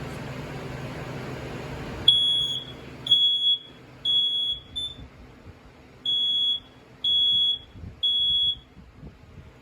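BRK 4120B smoke alarm sounding under test: a high-pitched beep in the temporal-three pattern, three half-second beeps, a pause, then three more. It starts about two seconds in, after a steady background hum.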